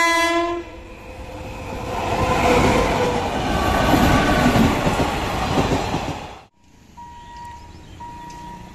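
Electric locomotive horn sounds briefly at the start, then an express passenger train passes close at speed: the rumble and rattle of the locomotive and coaches build to a loud peak and cut off suddenly about six and a half seconds in.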